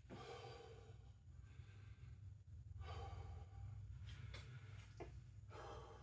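A man breathing hard between jump-rope sets, with loud exhales about every three seconds as he catches his breath. Two light clicks come about four and five seconds in.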